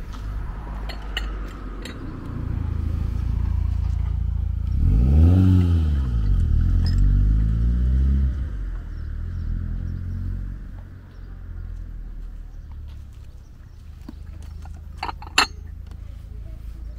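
A car drives past, its engine note rising and then falling and loudest about five to eight seconds in, over a steady low rumble. A few sharp clinks come near the end.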